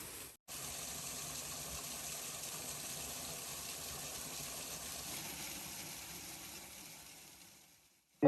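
Steady rushing water. It breaks off for a split second about half a second in, then fades out over the last couple of seconds.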